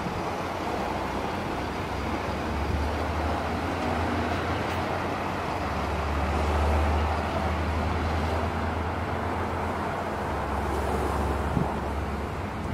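Outdoor background noise with a steady low rumble, like an idling engine or passing road traffic, swelling a little in the middle.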